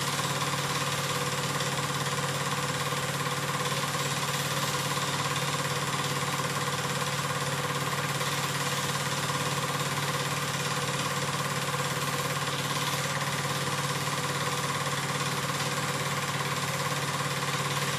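Home-movie film projector running steadily, with a continuous mechanical whirr and a steady hum that do not change.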